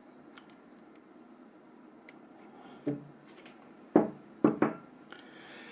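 Small plastic phone parts being handled and pried at: faint scattered clicks, then a few sharper knocks about three to five seconds in.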